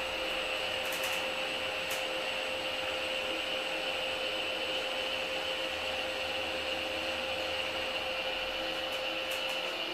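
Orona machine-room-less traction elevator car travelling down, heard from inside the car: a steady mechanical hum with a thin steady tone that stops near the end as the car comes to rest. A few faint clicks are heard.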